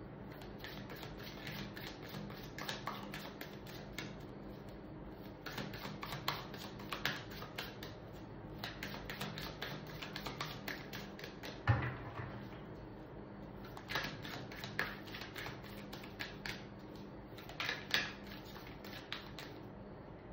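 Tarot cards being shuffled and handled: bursts of rapid light clicks and slaps every few seconds, with one louder knock about twelve seconds in, over a faint steady hum.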